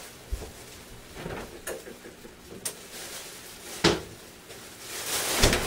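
A few separate knocks and clicks of objects being handled, the loudest about four seconds in, then a rustle near the end.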